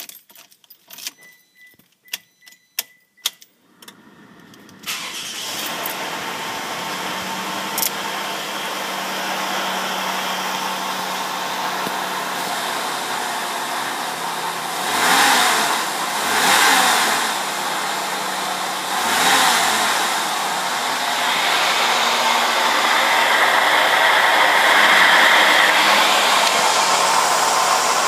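Toyota RAV4 V6 engine being started: a run of clicks with a faint repeated chime, then the engine catches about five seconds in and runs steadily, revved briefly three times, and a little louder near the end. The owner is showing a rattle or grinding sound he is unsure of.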